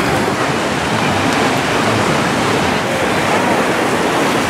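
Steady rush of surf on the beach mixed with wind buffeting the microphone, with faint distant voices.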